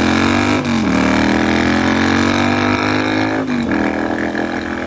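Triumph Bonneville Bobber's 1200cc 270-degree parallel-twin under hard acceleration. The revs climb, drop sharply for an upshift about three-quarters of a second in, then hold steady, with another short dip around three and a half seconds.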